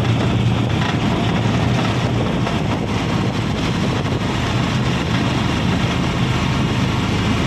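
Steady engine hum and road rush heard from inside a moving vehicle, with no sudden events.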